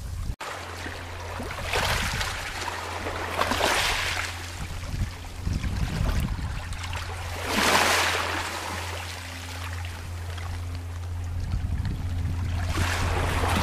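Small Baltic waves lapping and washing over a pebble beach, rising every few seconds into a hissing wash and then ebbing, over a steady low hum. The sound breaks off briefly just after the start.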